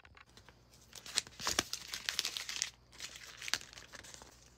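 Packaging crinkling and rustling as hands handle it while packing a sticker order, in a few irregular bursts, the longest in the middle.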